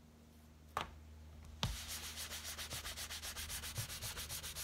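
A small cloth rubbed rapidly back and forth over a piece of leather, buffing out a freshly applied leather balm. Quiet at first apart from a light click, then a knock about a second and a half in, followed by quick, even rubbing strokes.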